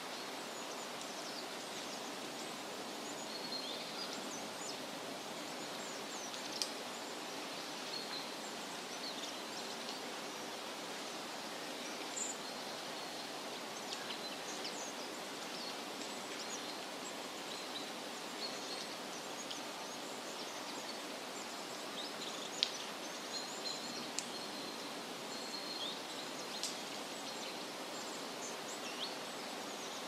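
Steady outdoor background noise, with short high bird chirps scattered throughout and a few sharp clicks.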